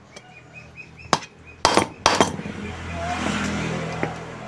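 Several sharp hammer blows on a steel shaft, salvaged from an electric fan, as its end is flattened and widened. After them a low rumble swells and then fades.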